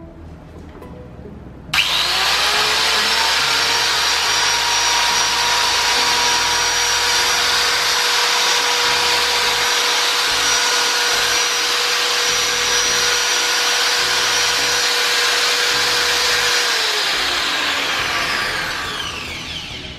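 Mollar AG9554 100 mm (4-inch), 570-watt electric angle grinder switched on about two seconds in for its first test run after reassembly, running steadily with no disc fitted and giving a high whine. Near the end it is switched off and spins down, its whine falling in pitch as it slows.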